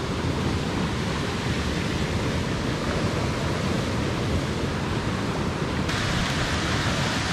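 Steady rushing of shallow river current flowing past a wader and a landing net, with a low fluttering rumble underneath; the hiss turns brighter about six seconds in.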